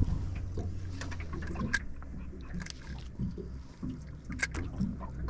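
Light knocks and clicks of a large carp being handled and unhooked in a boat, over a low steady rumble.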